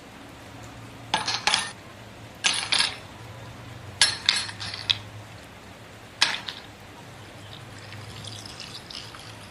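Ice cubes dropping and clinking into a glass in several short bursts of sharp clicks, followed near the end by a faint pour of liquid.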